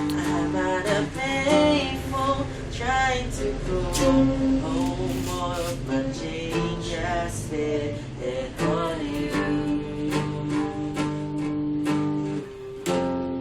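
Acoustic guitar strumming chords, with a wordless sung melody of gliding vocal runs over it for most of the passage, and a last strummed chord near the end.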